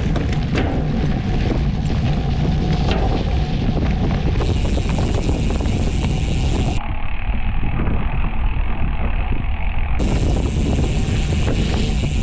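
Wind rushing over the camera microphone and mountain-bike tyres rumbling over a dirt trail at speed, with sharp rattling clicks from the bike over bumps in the first few seconds.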